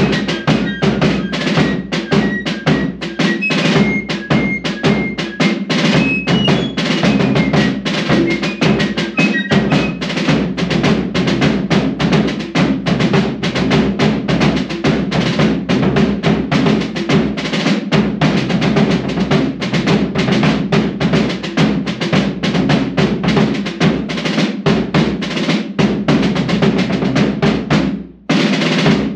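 Fife and drum group playing a march: a rope-tension snare drum with fast strokes and rolls over a bass drum beat, with fifes playing the melody over roughly the first ten seconds. The drumming breaks off briefly near the end, then starts again.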